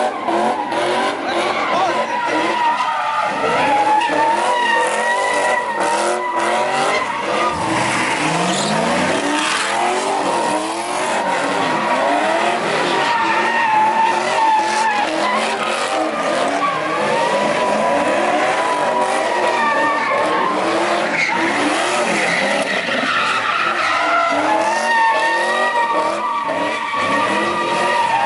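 A car's tyres squealing in a long, wavering screech while its engine revs up and down, the sound of a car spinning its wheels in a sideshow burnout.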